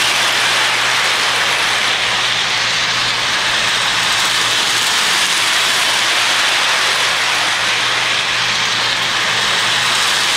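Electric toy train running around its track: the steady whir of its motor and wheels rolling on the rails, with a steady low hum underneath.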